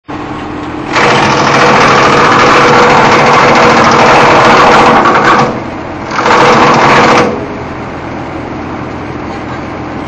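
Electric-motor disk wood chipper running with a steady hum, loud while it chews through wood fed into its hopper: a long burst of chipping from about a second in to past the middle, then a shorter burst about a second later, before it drops back to the running hum.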